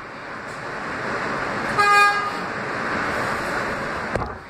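R160 subway train running through a tunnel with steady wheel and track noise; about two seconds in, the train's horn gives one short blast.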